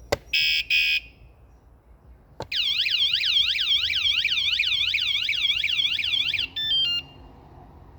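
Small add-on motorcycle alarm: two short beeps as it arms, then after a knock a loud siren of rapidly rising and falling sweeps, about four seconds long, ending in a short run of stepped tones.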